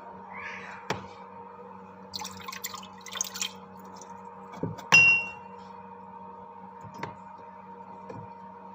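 Small containers being handled on a work surface: a few light knocks, a rustle, and one loud ringing clink about five seconds in, over a steady hum.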